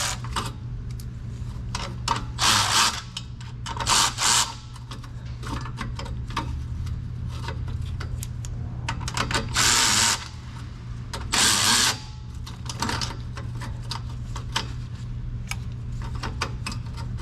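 A wrench or ratchet tightening the clamp bolt on a slip-joint exhaust pipe. There are several short bursts of ratcheting and scraping with scattered clicks between them, over a steady low hum.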